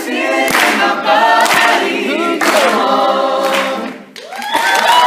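All-male a cappella group singing in close harmony, with sharp percussive beats. The voices break off about four seconds in and come back on a held final chord.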